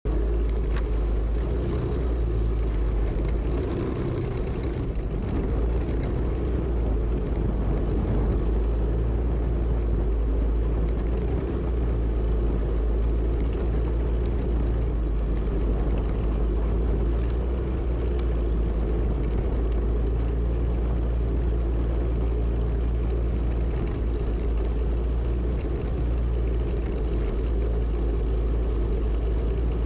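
Single-cylinder four-stroke Predator kart engine running steadily at low speed, heard from on board the kart, under a heavy low rumble of wind on the microphone.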